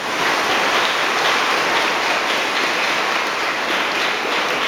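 Congregation applauding: dense, steady clapping that starts suddenly.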